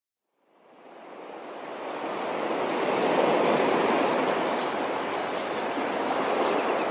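Sea surf on a shore: a steady wash of waves that fades in over about three seconds, then holds steady.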